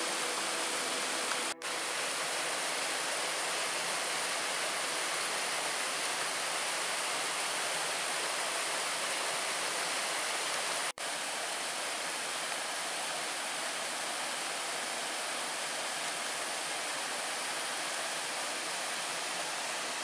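Steady rush of water falling at a waterfall, with two brief breaks, about one and a half seconds in and about halfway through.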